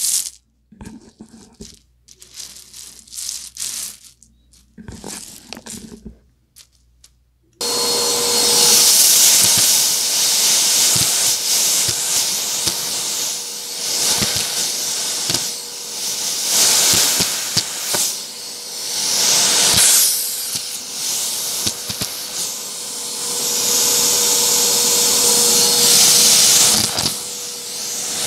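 Dry kidney beans poured and spread by hand on a shag rug, rattling and pattering in short bursts. About seven and a half seconds in, a Hoover vacuum with its crevice tool switches on suddenly and runs steadily at close range, with scattered sharp clicks.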